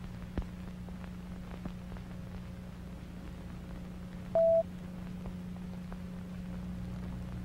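Low steady hum of an old analog soundtrack with scattered clicks and crackles, and one short, loud, single-pitched beep about four seconds in.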